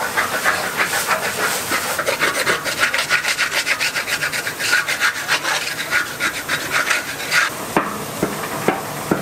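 Wooden paddle scraping and stirring a crumbly bean-flour rice-cake mixture around a large black pan, in quick rhythmic strokes of about three a second that stop about seven and a half seconds in.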